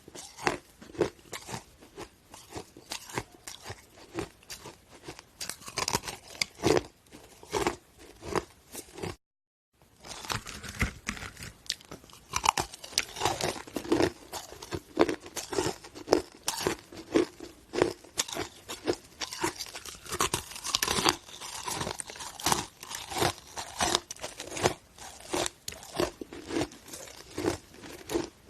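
A person biting and chewing hard chunks of ice, a rapid run of loud, sharp crunches close to the microphone. The sound cuts out completely for about half a second about nine seconds in.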